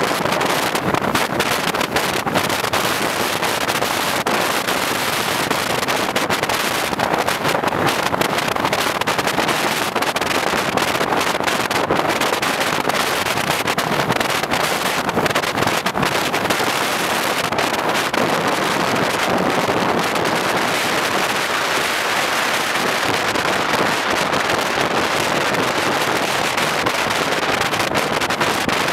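Loud, steady rushing noise of wind on the microphone, with frequent short crackles throughout.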